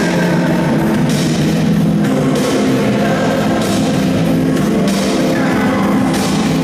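Dance music with a steady beat and a drum or cymbal accent about every second, played loud through the sound system of a large sports hall for the dancers.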